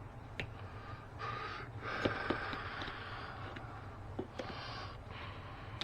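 Leather seat-back cover being pulled and peeled off a plastic panel: rustling, scraping stretches with a few light clicks, over a steady low hum.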